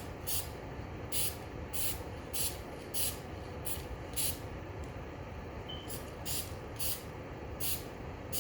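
Dupli-Color aerosol touch-up paint can spraying a light coat in short passes: about a dozen quick hisses roughly every half second, with a pause a little past the middle.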